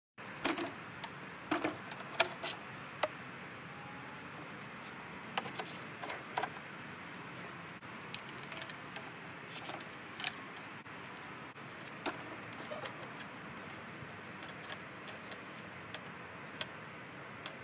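Plastic leaf-blower tubes being handled and fitted together: scattered sharp clicks and knocks at irregular moments over a faint steady outdoor hiss.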